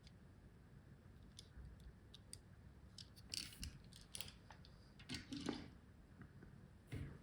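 Faint, scattered clicks and light crackles of a small die-cast toy car and its packaging being handled, with a few louder clusters a few seconds in and near the end.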